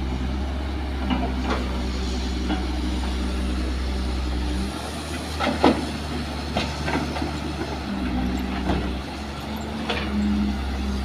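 Kobelco SK200 hydraulic excavator's diesel engine running under load, its note shifting as the hydraulics dig and swing. Several sharp clanks and knocks, the loudest about five and a half seconds in, as the bucket dumps soil and rocks into the steel bed of a dump truck.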